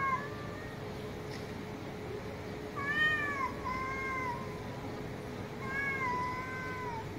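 Domestic cats yowling at each other in a face-off: three drawn-out, wavering calls, a short one at the start, then longer ones about three and six seconds in.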